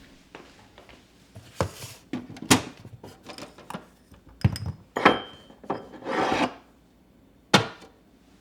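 Household objects being handled: a string of light knocks and clatters mixed with short rubbing or scraping strokes, and one brief ringing clink about five seconds in.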